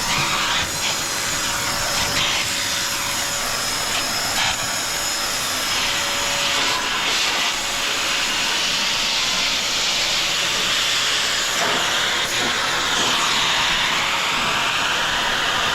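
Vacuum cleaner running steadily, a loud airflow hiss with a faint motor whine beneath, the hiss shifting in pitch now and then as it is worked.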